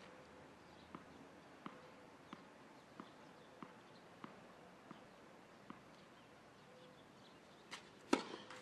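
A tennis ball bounced on the court about eight times in an even rhythm, then a single loud racket strike a little before the end, the pattern of a player bouncing the ball before serving.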